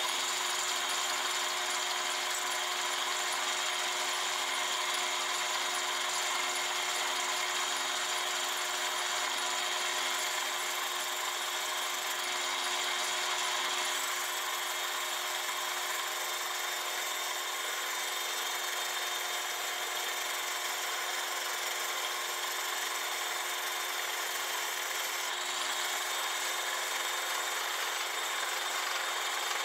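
Metal lathe turning a naval brass gear blank under a heavy roughing cut, hogging off the free-cutting brass as chips pile up. The lathe runs at a steady level, a hum of several steady tones under the hiss of the cut.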